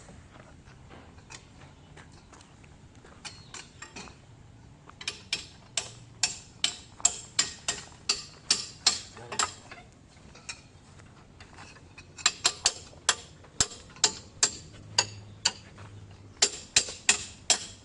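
Hammer striking steel in runs of quick, evenly spaced blows, about two to three a second, knocking at an excavator's track link. A few faint blows come first, then three loud runs with short pauses between them.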